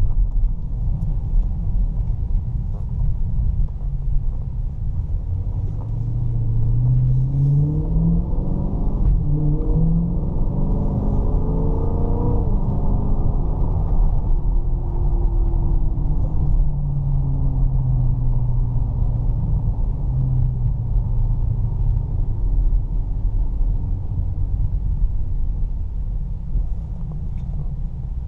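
A Chrysler 300 SRT's 6.4-litre Hemi V8 heard from inside the cabin under a steady rumble of road noise. About a third of the way in, the engine note climbs in steps through a few seconds of acceleration, then settles back to steady cruising revs.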